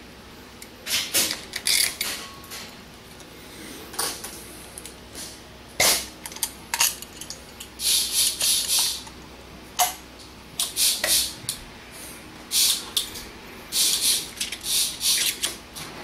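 Metal clicking and rattling from a Columbia automatic drywall taper's head mechanism as it is handled and worked by hand, coming in irregular bursts with short pauses between.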